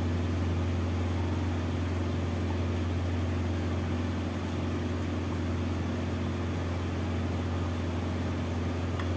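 Steady low machine hum, like a motor or fan running, with a faint even hiss over it.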